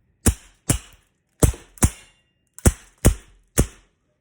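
All-metal CO2 airsoft revolver firing seven sharp shots, mostly in quick pairs a little under half a second apart.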